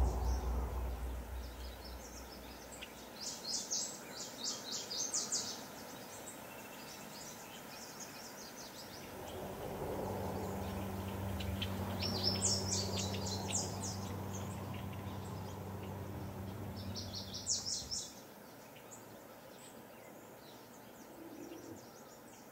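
Birds chirp in three short bursts of song over faint outdoor background noise, after the last of the music fades out. From around the middle, a steady low mechanical hum runs for about eight seconds and then stops suddenly: the drive of the C SEED 201 lowering its folded screen column into its underground housing.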